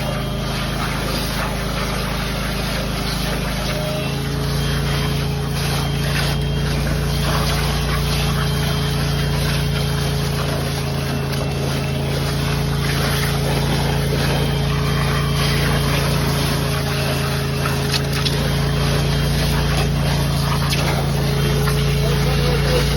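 Ditch Witch vacuum excavator running, a loud steady drone that stays even and picks up slightly about four seconds in.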